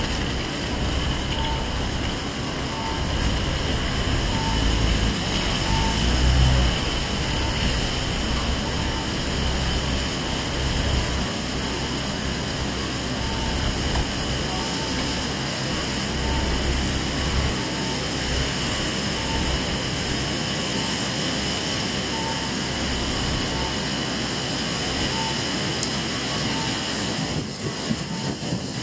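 Steady hiss of rain and wet-road city traffic, with a white Honda police motorcycle's engine running low underneath in the first half and dying away after that. A faint short beep repeats about every 0.7 seconds.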